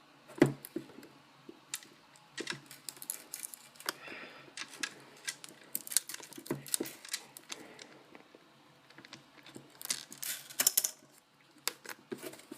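Irregular clicks, taps and short scratches of a small plastic toy being used to pry and scrape at the sealed product box, with the box being handled. The box will not open.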